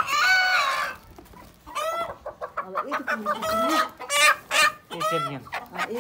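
Chickens clucking: one long call in the first second, then a string of short clucks.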